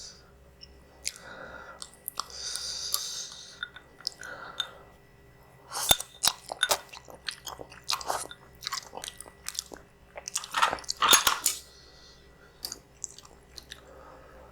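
Close-up eating of spicy instant noodles: wet chewing with many quick mouth clicks and smacks, busiest in the second half. Hissing drawn-in sounds come about one and three seconds in.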